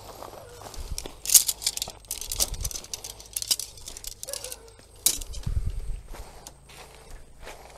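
Irregular crinkling, rustling and sharp clicks of things being handled, with a short low rumble about two-thirds of the way through.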